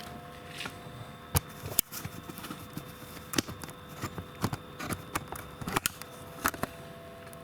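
A string of irregular sharp clicks and light taps, the loudest two close together near the start, over a faint steady electrical hum.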